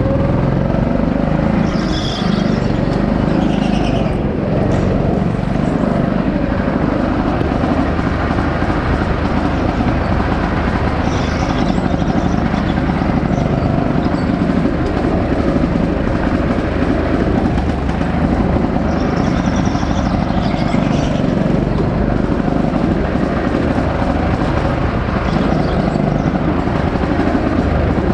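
Go-kart running at speed on an indoor track, a steady loud drone with brief high squeals a few times.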